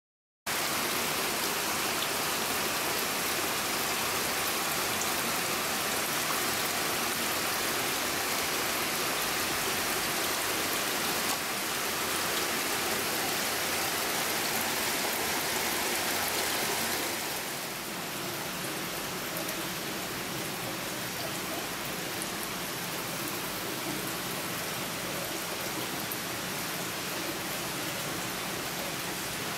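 Water running steadily in indoor fish-hatchery tanks: an even rushing hiss that drops a little in level about 17 seconds in.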